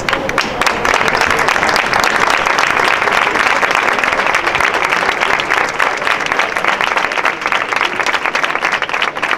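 A large crowd applauding, the clapping swelling in the first second and thinning slightly near the end.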